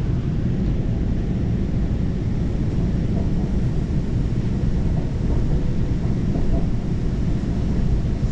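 Steady low rumble of a passenger train in motion, even throughout with no distinct clicks or tones.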